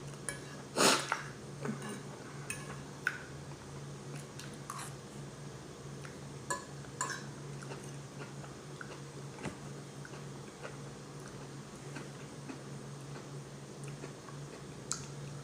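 Close-up chewing and mouth sounds of someone eating, with scattered clinks of cutlery on a plate, the loudest about a second in. A steady low hum runs underneath.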